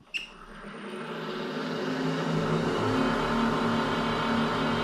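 Union Graduate woodturning lathe's motor, fed by a variable frequency drive, spinning up from rest to full speed: a click, then a whirring hum that builds over about two seconds and then runs steady.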